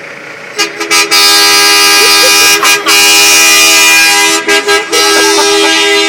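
Volvo semi truck's two-tone horn honking loudly, set off by a dog standing on the steering-wheel horn pad. It starts about half a second in, holds one long blast for about three seconds, then cuts in and out in short honks as the paws shift.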